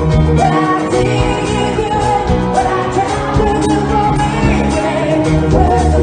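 A live rock band playing, with a lead melody, which PANN hears as singing, over bass and drums.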